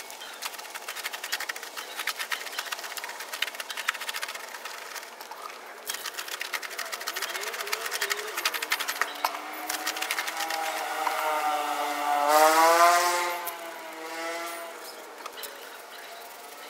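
Long-handled brush scrubbing a soapy alloy wheel and tyre in quick, scratchy strokes. From about eight seconds in, a vehicle engine is heard passing, its pitch rising and then falling, loudest around twelve to thirteen seconds in.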